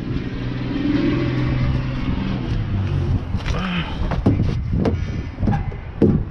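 Heavy truck's engine idling with a steady low rumble. From about four seconds in comes a series of dull thumps, roughly two a second.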